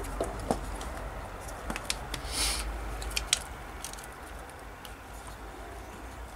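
Small clicks and light rustling from hands handling screws, a thin cardboard motor plate and the plastic chassis of an RC truck, with a short scratchy rustle about two and a half seconds in.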